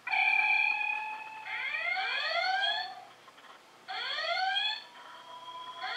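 Electronic sound effects from the Playmobil Star Trek Enterprise model's built-in speaker. A steady electronic tone is followed by two alarm-like rising sweeps, about two seconds apart.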